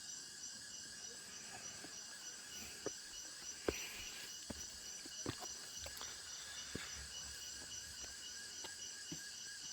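Jungle insect chorus: several high, shrill tones held steadily at once, the highest with an even pulsing. Scattered light knocks and clicks come through it, the sharpest about a third of the way in.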